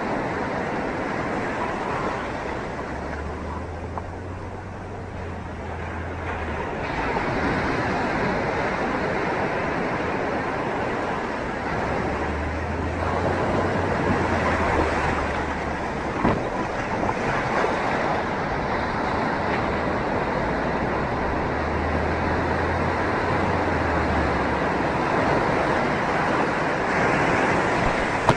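Ocean surf breaking and rushing in swelling waves of noise, with wind rumbling on the microphone now and then and a single sharp knock about sixteen seconds in.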